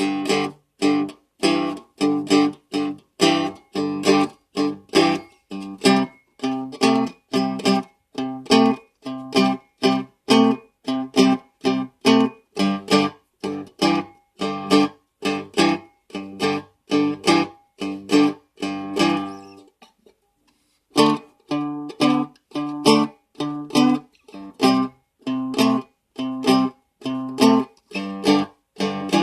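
Seagull Merlin strummed in open G tuning (G-D-G-G), playing a slow blues in G: steady rhythmic strums about two a second, with a short break about two-thirds of the way through before the playing resumes.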